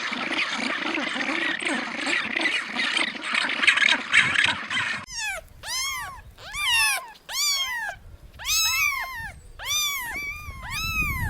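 A dense, noisy chatter of calls that cuts off abruptly about five seconds in, followed by a cat, most likely a kitten, meowing over and over in short rising-and-falling cries about one every 0.7 seconds.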